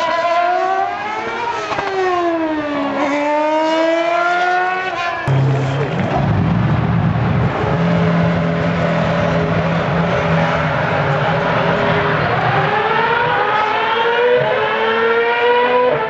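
Open-wheel race car engine running hard, its pitch sweeping up and down through the gears. About five seconds in the sound cuts abruptly to a lower, steadier engine note that climbs in pitch again near the end.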